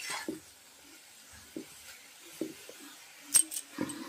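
Metal spatula scraping and clinking against a steel kadhai while stirring, with two sharp ringing metallic clinks about three and a half seconds in.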